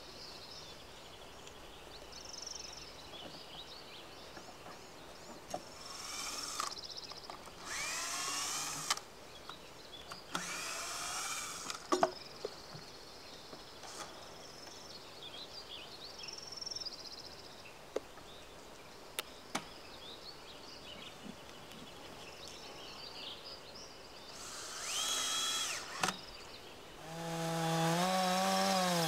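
Low background with a few short scraping and handling noises, then about two seconds before the end a Stihl chainsaw runs up to full revs and rips lengthwise through a pine log in a Logosol chainsaw mill, its engine pitch sagging slightly as the chain bites.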